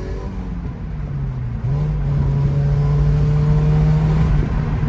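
1992 Mazda Miata NA's 1.6-litre four-cylinder engine running through a freshly fitted MagnaFlow stainless cat-back exhaust, with a steady exhaust note. The pitch dips briefly about a second in, then the note comes back louder and holds steady.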